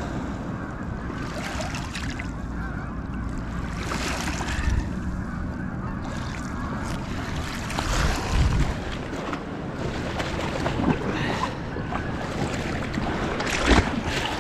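Small waves lapping on a rocky gravel river bank, with wind on the microphone. Rocks knock and scrape as a large stone is moved about a third of the way in, and there is a sharp splash in the shallows near the end.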